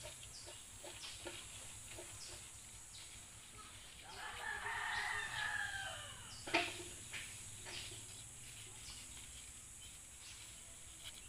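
A rooster crowing once, a drawn-out call of about two seconds in the middle. Around it, faint small snaps and rustles of young jackfruit leaves being picked over by hand, with one sharper click just after the crow.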